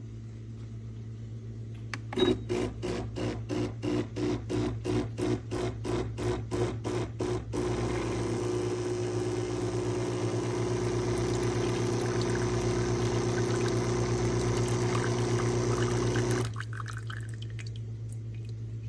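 HiBREW H10A espresso machine's pump pulling a shot. It pulses in short bursts about four times a second for some five seconds, the pulsed start typical of pre-infusion. It then runs steadily for about nine seconds and cuts off suddenly, leaving a low hum.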